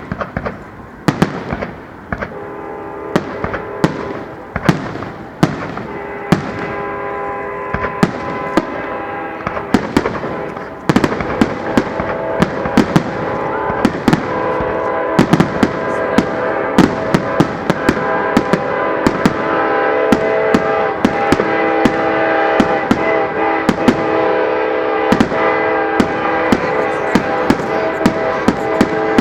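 Fireworks shells bursting in rapid succession, heard up close: a dense run of sharp bangs that grows louder and thicker about eleven seconds in. Music plays underneath from about six seconds in.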